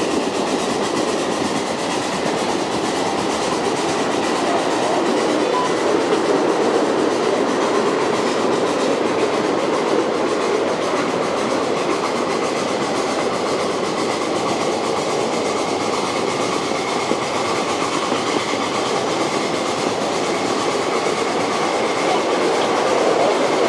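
Ridable miniature live-steam train rolling along its track: a steady rumble and clatter of the riding cars' wheels on the rails.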